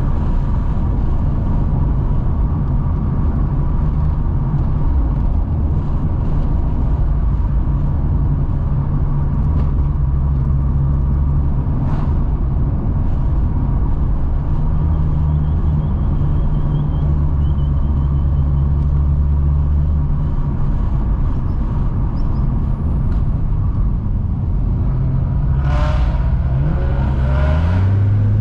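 Car driving at cruising speed: a steady engine drone under road and tyre noise. Near the end the engine note climbs as it accelerates.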